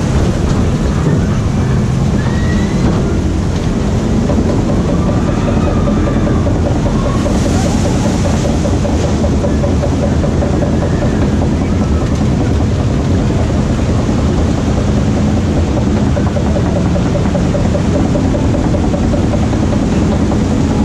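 Water coaster boat being hauled up the lift hill: a steady mechanical rumble from the lift, with a held hum that comes in about four seconds in.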